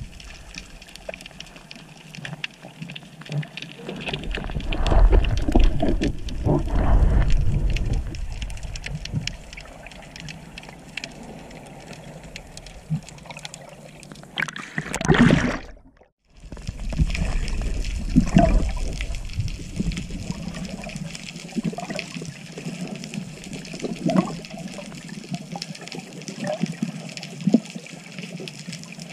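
Underwater water noise heard through a camera housing while swimming over a reef: sloshing and gurgling water with a steady crackle of fine clicks and heavy low rumbling surges, the sound dropping out for a moment about halfway.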